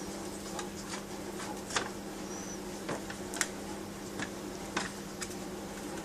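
Pet rainbow lorikeet moving about: about eight irregular sharp clicks and taps, with one brief high chirp about two and a half seconds in, over a steady low hum.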